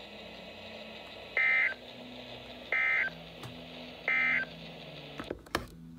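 Three short bursts of Emergency Alert System SAME data tones, the end-of-message code that closes a broadcast warning. Each burst is a brief warbling chirp about a third of a second long, and they come about 1.3 s apart. A faint steady hum runs underneath, and a sharp click comes near the end.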